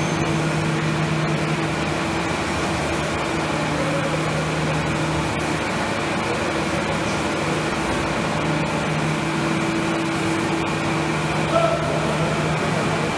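Steady drone of running factory machinery, leather-processing machines and conveyors, with two steady low hum tones under an even hiss.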